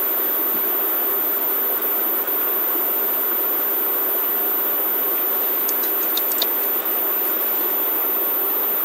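Steady microphone hiss with a low hum under it, and a few faint clicks about six seconds in.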